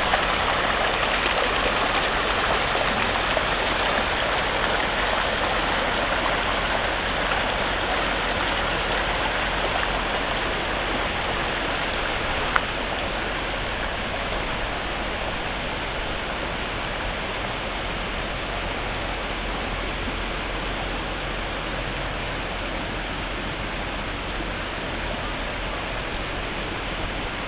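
Floodwater rushing steadily in a dense, unbroken wash, easing slightly over the span, with one sharp click about halfway through.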